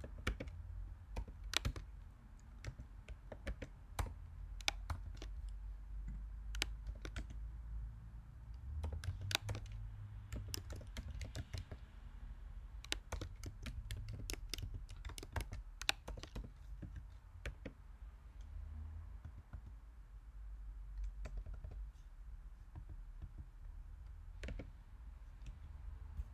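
Typing on a computer keyboard: irregular keystrokes in quick runs with short pauses between them, over a faint low hum.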